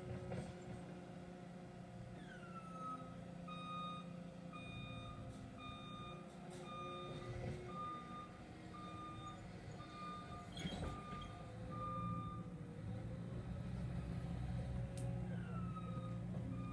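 Backup alarm of a Cat skid-steer loader beeping steadily, about two beeps a second for roughly eight seconds, over the low rumble of its diesel engine as it reverses.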